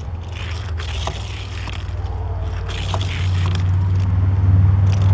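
A few light clicks and scrapes of a diecast toy car being handled and set on plastic track on a wooden table, over a low steady hum that grows gradually louder.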